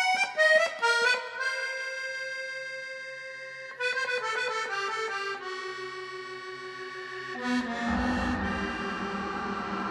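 Instrumental music: quick runs of notes and long held notes. About seven and a half seconds in, a low rumbling noise rises under it.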